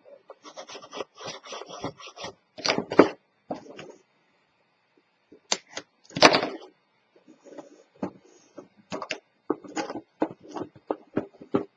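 Hands handling a cardstock box: paper rubbing and scraping as its strips are pressed and burnished down with a bone folder, with a few sharper knocks as the box is turned and set down on the mat.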